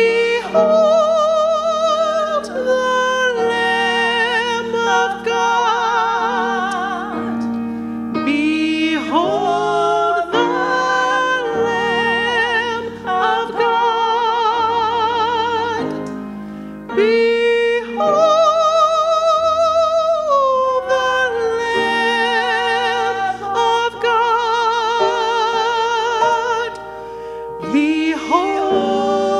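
A solo voice singing long phrases with wide vibrato, over sustained pipe organ chords, with short breaths between phrases.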